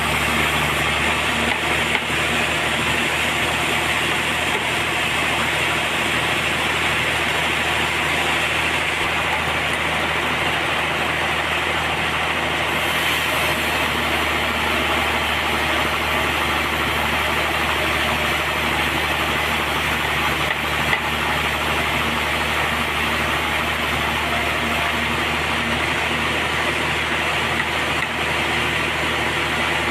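Sawmill machinery running steadily, with an even engine hum.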